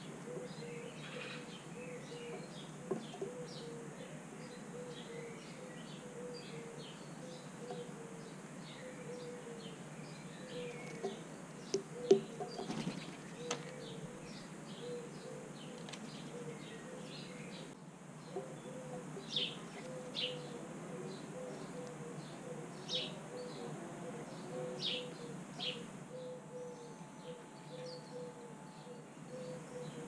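Small birds chirping in the background, short high calls scattered throughout and more frequent in the second half, over a steady low outdoor hum. A cluster of sharp taps about twelve seconds in is the loudest sound.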